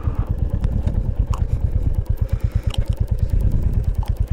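Royal Enfield Classic 350's single-cylinder engine running on a downhill ride, with a steady pulsing beat.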